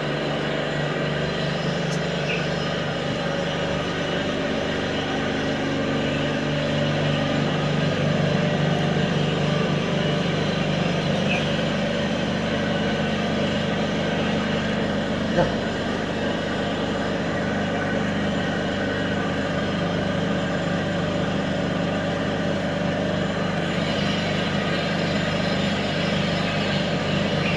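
A steady low mechanical hum, with a single sharp click about halfway through.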